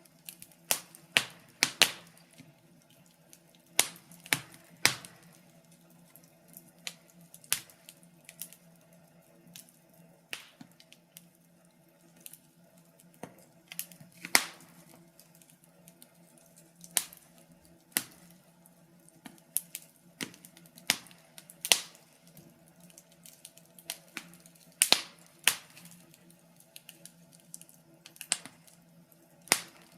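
Wood fire crackling in a fireplace: irregular sharp pops and snaps, a handful of louder ones among many faint ticks, over a faint steady low hum.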